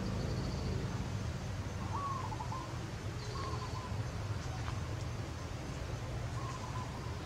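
Birds calling a few times: three short, slightly stepped calls and a couple of faint high chirps, over a steady low rumble.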